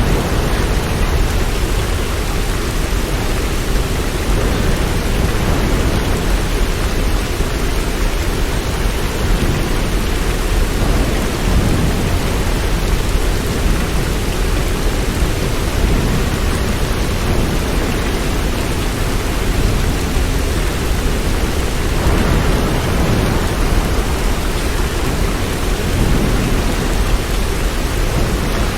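Steady rain: an even, unbroken hiss with a strong low rumble underneath.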